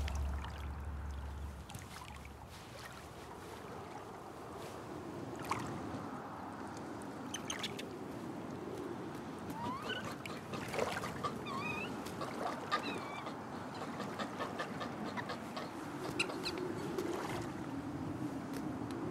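A few short Japanese macaque calls with gliding pitch, mostly in the second half, over a steady outdoor ambience with scattered faint clicks.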